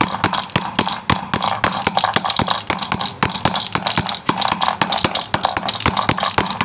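Mallet tapping rapidly on a thin brass disc laid in the recessed metal top of a spray-paint can, about four strikes a second, hammering the flat brass into a convex dome.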